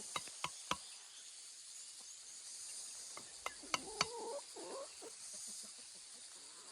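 Sharp hand-tool knocks: three strikes near the start and three more about three and a half seconds in. Under them runs a steady high insect hiss, and a short wavering call sounds around four seconds.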